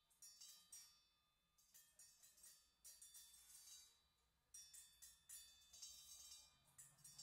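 Circular saw blades struck by solenoids, ringing out in irregular clusters of quick metallic strikes with high, bell-like tones that fade after each hit, with a short lull about four seconds in. Faint.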